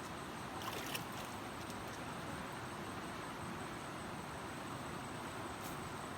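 Steady rush of flowing river water, with a few light clicks about a second in and again near the end.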